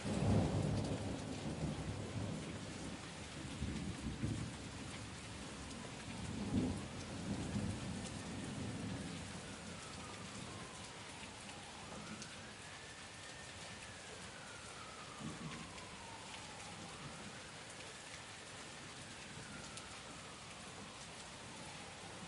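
Steady rain falling, with low thunder rumbling near the start and again about four, six and a half and fifteen seconds in. A faint whistling tone slowly rises and falls three times in the second half.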